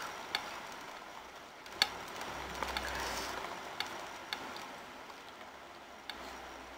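Someone chewing crunchy pretzel bites, with soft crackling and a few sharp clicks scattered through.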